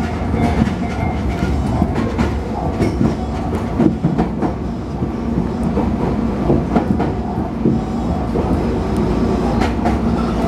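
Tobu Noda Line commuter train heard from inside the car as it runs into a station: a steady running rumble with irregular clicks of the wheels over rail joints, and a steady hum that comes in near the end.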